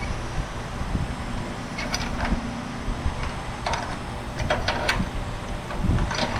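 Short metallic clicks and scrapes of a small sheet-metal patch piece being fitted by hand into a car's body panel, over a steady low hum.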